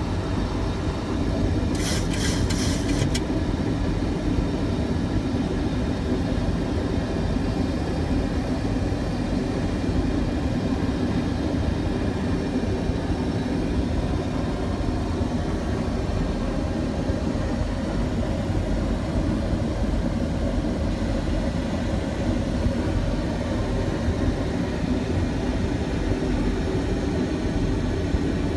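Steady flight-deck noise of a Boeing 737-700 in descent: the even rush of airflow with the low hum of its CFM56 engines. A quick run of clicks comes about two seconds in.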